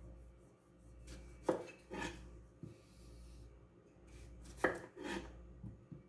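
Kitchen knife cutting through tomatoes and knocking on a wooden cutting board: two pairs of sharp chops, the first about a second and a half in, the second near the end.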